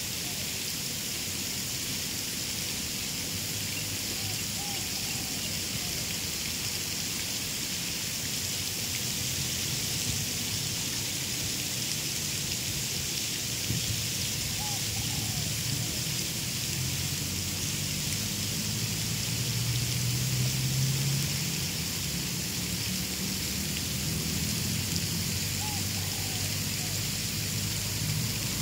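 Steady outdoor background: a constant hiss with a low, shifting rumble underneath that swells somewhat about two-thirds of the way through, and a few faint short chirps.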